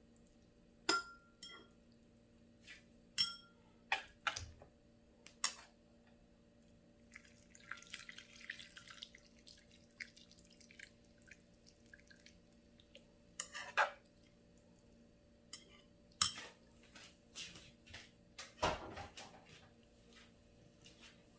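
Kitchen utensils and dishes clinking and knocking against each other at irregular moments, a few strikes ringing briefly, with a few seconds of water-like splashing about a third of the way in, over a faint steady hum.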